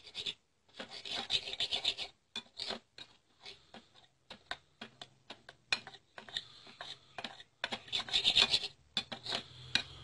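A spoon scraping and rubbing in a small bowl in short, irregular strokes, as turmeric powder and milk are spooned together.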